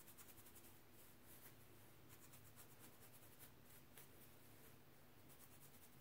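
Faint, quick scratching of a plastic rattail comb's fine teeth against the scalp, coming in short runs of rapid strokes, as the comb loosens scalp buildup.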